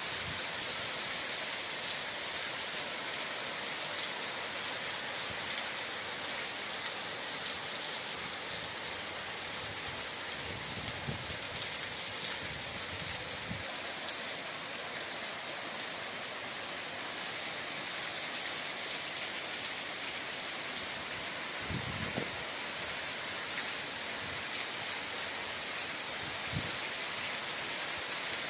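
Steady rain falling in an even hiss, with a few brief low rumbles of thunder about a third of the way in and again twice near the end.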